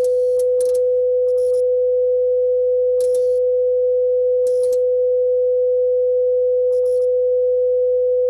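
Emergency alert broadcast tone: one steady, unwavering single-pitch tone of middling-low pitch, held without a break, with faint crackles of static now and then.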